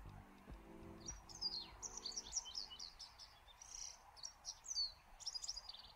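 Japanese wagtail singing: a quick, varied run of high chirps and twitters. A few low background music notes sound in the first two seconds and then stop.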